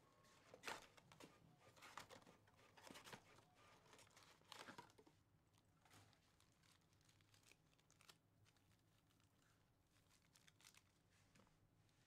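Faint crinkling and rustling of a trading-card hobby box being opened and its foil card packs handled, a few short soft rustles in the first five seconds.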